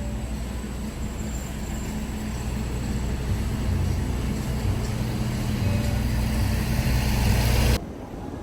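Engine running steadily, a low rumble that grows slowly louder and then cuts off abruptly near the end.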